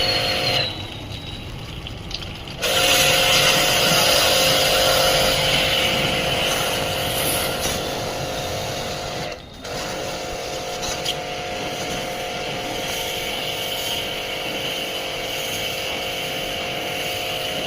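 A machine running steadily with a constant whine over a noisy hiss. It dips briefly about a second in and cuts out for a moment about halfway.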